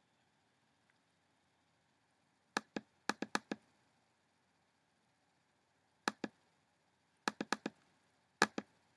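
Computer mouse buttons clicking, in quick pairs and runs of four with pauses of a few seconds between groups.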